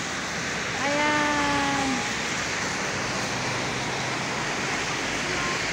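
Steady rushing outdoor background noise.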